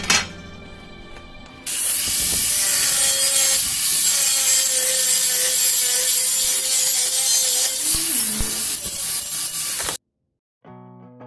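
Angle grinder cutting a ceramic wall tile: a sharp knock at the very start, then about two seconds in the grinder bites in with a loud, hissing grind over a steady motor whine, which cuts off suddenly near the end.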